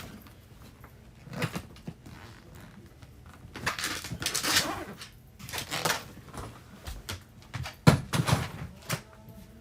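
Rustling and knocking of things being handled and moved about, in several short bursts, with one sharp knock about eight seconds in.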